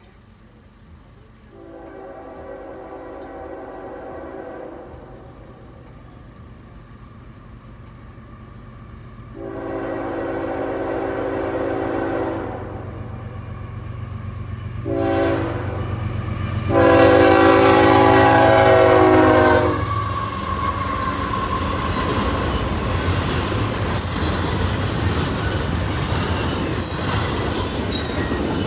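CSX GE diesel locomotive's air horn sounding the grade-crossing signal: long, long, short, long, with the last blast the loudest. Under the horn the locomotive's engine rumble grows. The locomotive then passes and double-stack intermodal cars follow, their wheels clattering and squealing on the rails.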